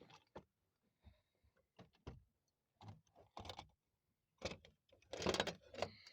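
Irregular light clicks and knocks of small metal sockets being handled, with a louder cluster of clatter about five seconds in.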